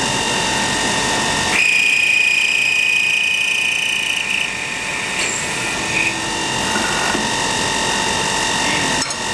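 MSI ChamferMate chamfering machine running with a steady high whine while its turning head chamfers the end of a metal bar. A louder high-pitched tone sounds for about three seconds, starting about one and a half seconds in, as the cutter works the bar.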